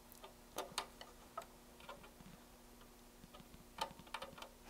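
Faint, irregular small clicks of hand and tool contact while the 10K ohms calibration adjustment inside an HP 34702A multimeter is turned, over a faint steady hum. The clicks come in a few scattered groups, most of them near the start and near the end.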